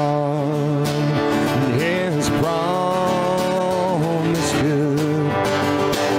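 A man singing a worship song to his own strummed acoustic guitar, holding one long note in the middle.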